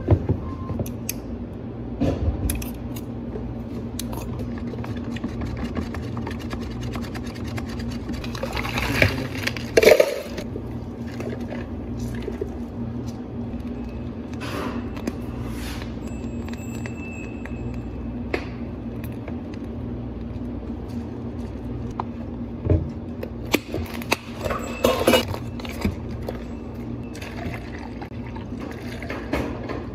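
Milk pouring from a carton into plastic cups at a cafe counter, with scattered knocks and clinks of cups and containers and a few louder splashy bursts, over a steady low hum.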